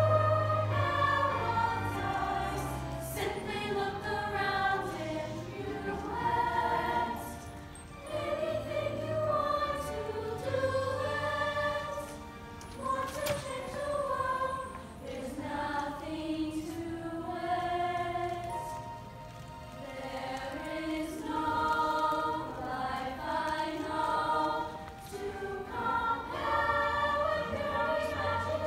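Middle-school girls' choir singing a ballad in harmony, with low held notes underneath.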